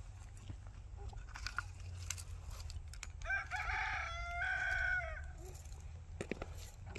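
A rooster crows once about halfway through, a call of nearly two seconds with a short break in the middle, over scattered small knocks and clicks.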